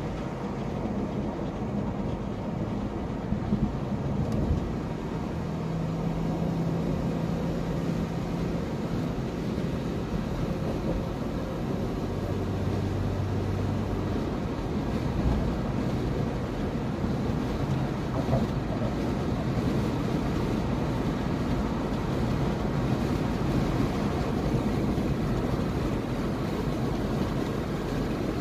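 Steady road and engine noise of a car driving, heard inside the car's cabin.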